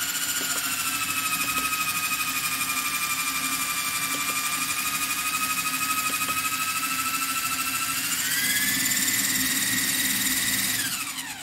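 Small electric motors of a handmade tandem-rotor model helicopter spinning its twin rotors with a steady high whine. About eight seconds in the pitch steps up. Near the end the pitch falls away quickly as the motors spin down and stop.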